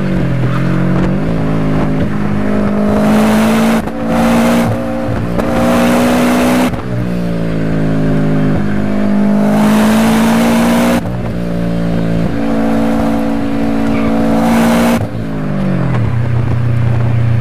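A car engine heard from inside the cabin, accelerating hard through the gears: the revs climb in each gear and drop at every upshift, several times over. Near the end it eases off and settles to steady lower revs.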